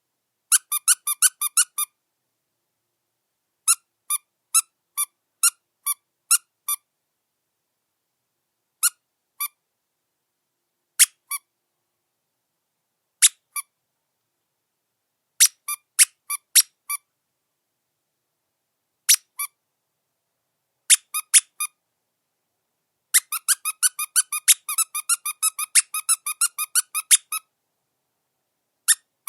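Squeaky dog chew toy being squeezed: short squeaks in irregular runs, singles and pairs, with silent gaps between and a fast run of about twenty squeaks near the end.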